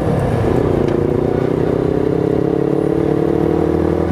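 Honda Gold Wing 1800's flat-six engine running steadily under way, its pitch rising slowly as the bike gathers speed.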